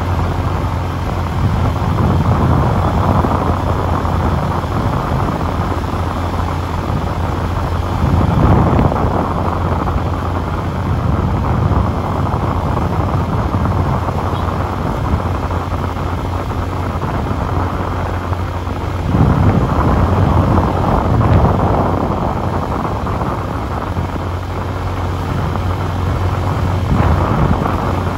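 Wind buffeting the microphone of a moving open vehicle over a steady low engine hum, swelling louder about a third of the way in and again past the middle.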